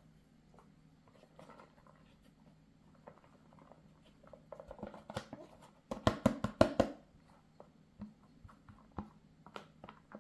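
A box of grated kashkaval cheese being emptied onto a pizza. Light rustling and clicks of the cheese and box are followed, about six seconds in, by a quick run of about eight sharp knocks within a second as the box is tapped out.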